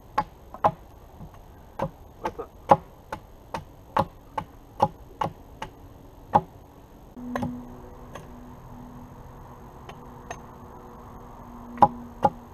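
Hatchet chopping into a wooden pole: a run of sharp wooden knocks, two or three a second, then a pause and two more knocks near the end.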